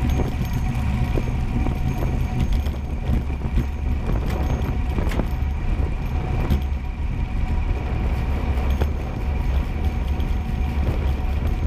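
Steady rumble of wheels rolling fast down an asphalt road, with a few short sharp clicks along the way.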